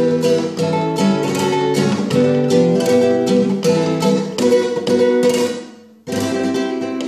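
Flamenco guitar playing bulerías: fast strummed rasgueado chords and picked notes in a driving rhythm. Just before six seconds in the sound dies away almost to nothing, then the playing starts again abruptly.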